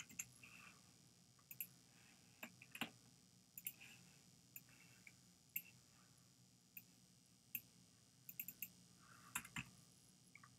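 Faint, irregular clicks of a computer mouse, more than a dozen scattered over a near-silent room tone.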